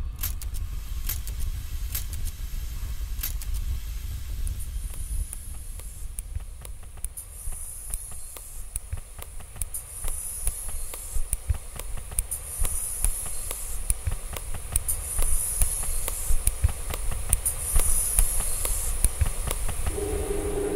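Collage of small percussion and classroom sounds over a low rumble. Scattered sharp clicks and taps come first. From about a quarter of the way in, a shaker's high rattle swells and fades in slow, even waves, about one every two and a half seconds.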